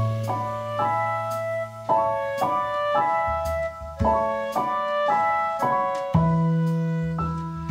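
Background music: a melody of notes changing about twice a second over bass notes that shift roughly every two seconds.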